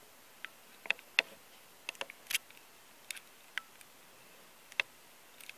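Irregular sharp clicks and ticks from the handheld camera as it zooms and hunts for focus without locking on, about a dozen over a few seconds, the loudest a little over two seconds in.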